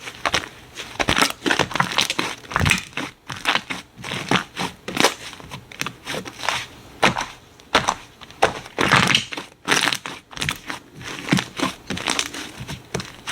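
Slime being squeezed and pressed by hand, giving an irregular run of crunchy, crackling pops and clicks.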